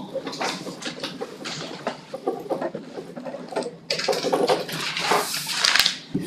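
Paper sheets rustling and being shuffled on a table, with small taps and clicks, growing denser and louder in the last couple of seconds.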